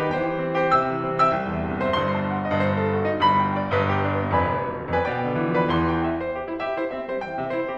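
Background piano music: a steady stream of notes over held low chords.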